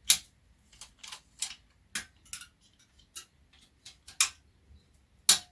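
Irregular sharp clicks and snaps, about a dozen, from a small mechanism out of a Panasonic SA-AK90 stereo being worked back and forth by hand. The loudest clicks come just after the start and near the end.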